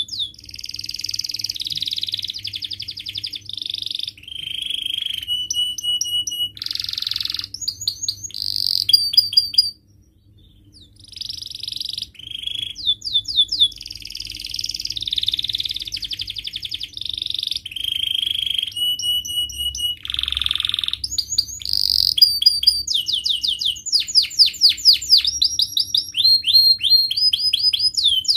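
Domestic canary singing a long, varied song of rapid trills, rolls and quick repeated sweeping chirps, with a short pause about ten seconds in.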